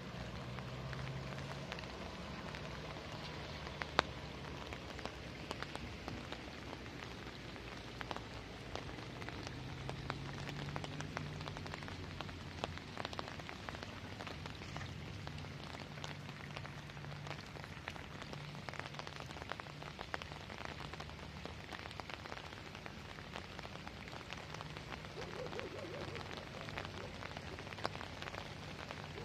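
Steady rain pattering, with many single drops ticking sharply, over a low steady hum from a moving car.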